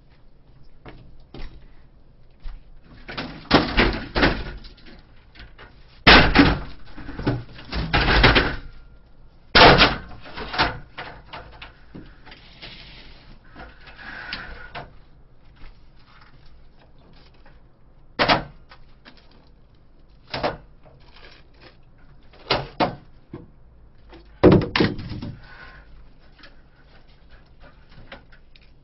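A metal-framed table being moved and set up: a run of irregular bangs, knocks and scraping clatter. The loudest come about six and ten seconds in.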